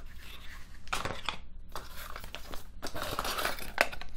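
Cardboard box inserts and paper being handled and pulled out of a webcam box: rustling and crinkling, with a few sharp cardboard clicks about a second in and again near the end.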